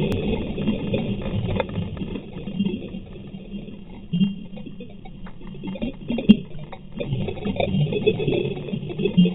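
Muffled rushing and rumbling picked up by a camera being towed underwater behind a boat, with scattered sharp clicks and a steady high hiss above it.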